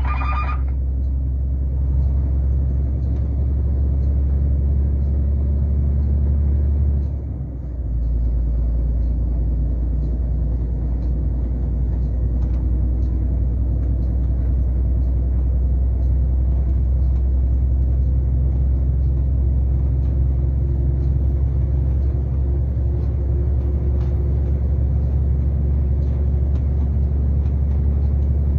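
Steady low rumble of engine and road noise inside a moving truck's cab, dipping briefly about seven seconds in.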